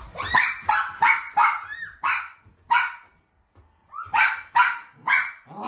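Toy poodle barking in short yaps: a quick run of about seven, a pause of over a second, then three more.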